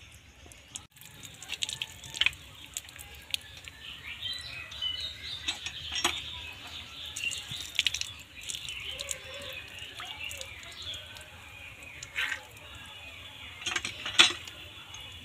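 Goat intestines being washed by hand over a metal wok: water dripping and splashing into the pan as the strands are pulled and squeezed, with scattered sharp clinks of glass bangles and metal, the loudest near the end.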